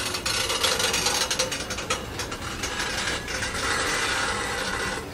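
Heritage railway carriages rattling and clattering as they run along the track: a dense, uneven run of sharp clicks and knocks over a steady running noise.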